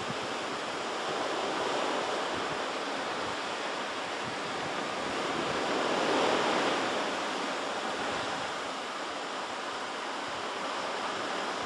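Pacific surf washing against the shore, a steady rushing that swells to a peak about six seconds in, with wind buffeting the microphone.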